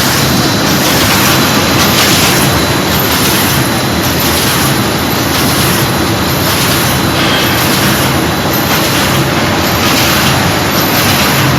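Sheet-fed paper bag making machine running steadily in production, a loud, continuous mechanical clatter and hum.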